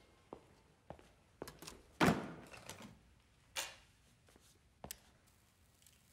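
A wooden case set down on a stone counter with a solid thunk about two seconds in, among scattered clicks and knocks, followed by a short swish about a second and a half later, in a small, echoing room.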